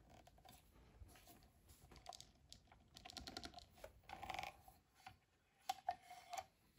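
Faint clicks and light metal rattles of a hand-operated pen press being worked to press a pen nib into a wooden pen blank, with a couple of short squeaks about four seconds in and again near the end.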